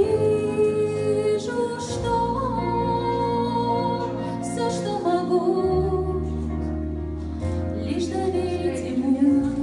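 A slow, gentle song: a woman sings long, wavering notes in Russian over an instrumental accompaniment with held bass notes.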